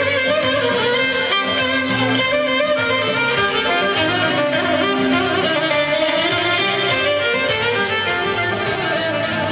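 Violin-led dance music from a six-piece wedding band, playing on without a break.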